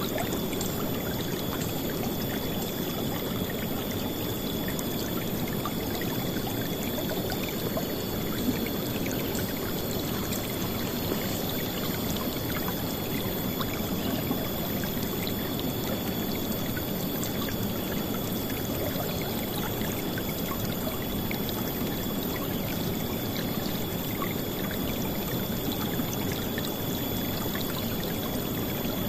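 River water flowing and splashing in a steady, unbroken rush, with a faint steady high tone above it.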